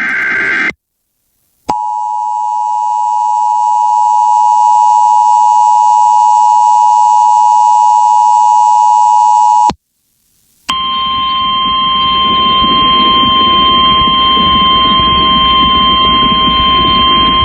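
The tail of an Emergency Alert System data burst, then the EAS attention signal: two steady tones sounding together, near 853 and 960 Hz, for about eight seconds. After a second's pause comes a single steady tone near 1050 Hz over static hiss for about eight seconds, the weather-radio warning alarm tone that heralds a flash flood warning.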